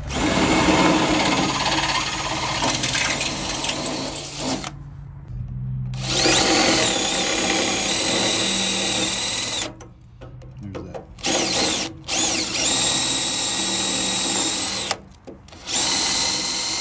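Cordless drill with a 1/4-inch bit drilling out a rivet in a metal step bracket, run in bursts of a few seconds with short stops in between, the motor whine climbing as each burst starts up.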